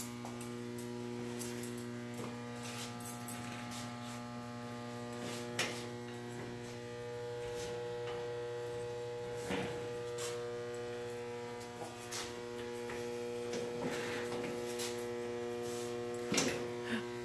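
A steady electrical hum, a buzz about 120 Hz with many overtones, with a few faint clicks and knocks through it.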